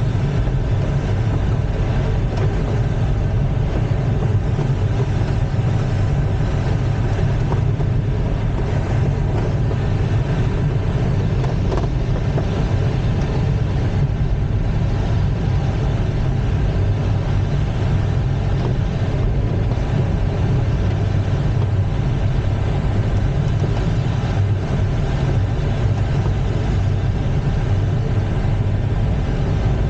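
Steady rush of airflow around the cockpit of an ASK-21 glider in free flight, loud and unchanging, with most of its weight low down.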